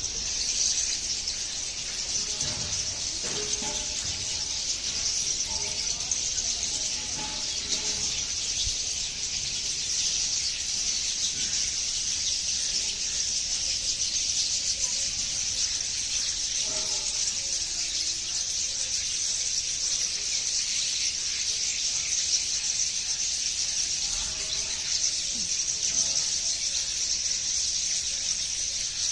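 Birds chirping over a steady, high-pitched shrill that runs throughout without a break, with scattered lower calls now and then.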